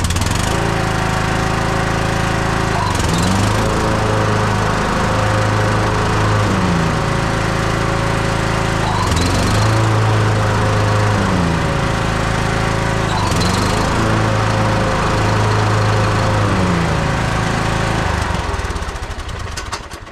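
Husqvarna YTH21K42 riding mower's engine running while the blades are engaged and disengaged several times: every few seconds the engine pitch dips and recovers as the deck takes up load. This tests a new, shorter deck belt, which stays on. The engine dies away near the end.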